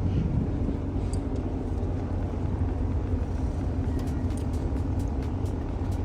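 Steady low motor rumble, with a few faint ticks in the second half.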